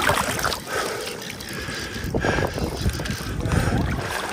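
Wind buffeting the microphone over river-water noise, with irregular scuffs and thuds of footsteps wading over slippery rocks.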